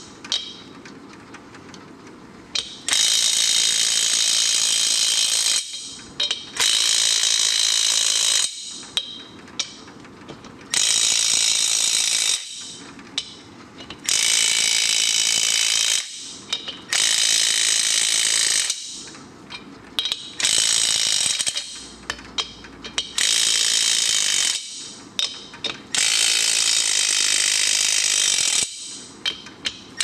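Impact wrench hammering in about nine bursts of two to three seconds each, with short pauses between them, as it runs lug nuts down on the wheel studs to pull the studs fully into the front hub and brake drum.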